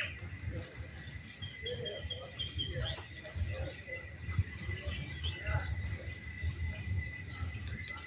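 Outdoor garden ambience: insects drone in a steady high, even whine, with scattered short bird chirps over a low rumble. About one and a half seconds in comes a quick run of six evenly spaced chirps.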